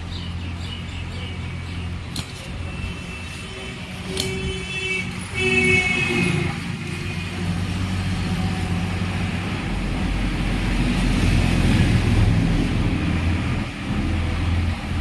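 Road traffic with vehicle engines running steadily and horns tooting briefly, a few times between about three and six seconds in.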